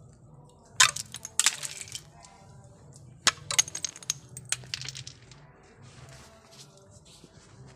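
Frozen snow crunching and cracking in several sharp clusters during the first five seconds, over a low steady hum.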